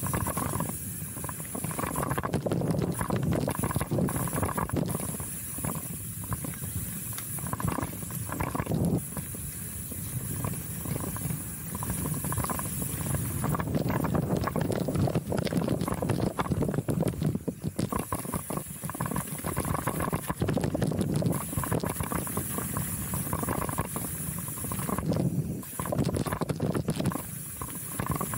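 Chromag Rootdown steel hardtail mountain bike riding fast down a dirt singletrack: tyres rolling and crunching over the trail, the bike rattling and knocking over roots and bumps, with a steady rush of air noise throughout.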